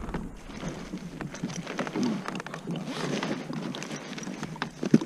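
Handling gear at a kayak's rear storage: rustling of a fabric fish bag with scattered light clicks and knocks against the plastic hull, and one sharp knock near the end.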